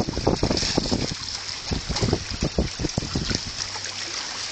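Small waves lapping and slapping irregularly against stones at the water's edge, with wind noise on the microphone.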